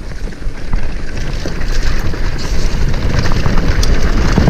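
Mountain bike descending a dirt trail at speed: wind buffeting the camera's microphone over the tyres rolling on dirt, with the bike rattling over bumps. It grows louder as the bike picks up speed.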